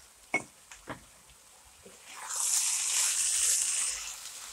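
Two light knocks, then from about two seconds in a spatula stirring minced meat and diced onions in a hot frying pan, the food sizzling and hissing for nearly two seconds before it eases off.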